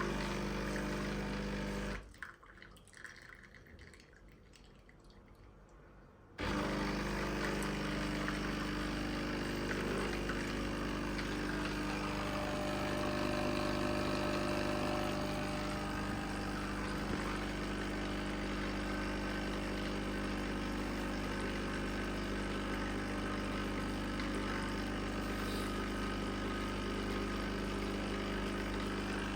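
Easy Grey capsule coffee machine's pump running with a steady hum while coffee pours into the cup. The pump stops about two seconds in and starts again about four seconds later.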